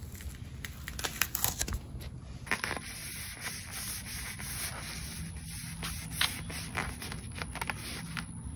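A few crackles of blue painter's tape being peeled off a wooden handle, then a paper towel rubbing back and forth over the wooden handle from about two and a half seconds in, working in Liquid Gold wood polish.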